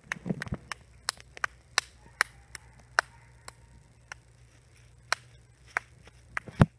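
Scattered sharp clicks, about one to three a second at irregular spacing: the hard Toe of Satan chili candy knocking against teeth while being sucked. A heavier low thump comes near the end, over a faint steady hum.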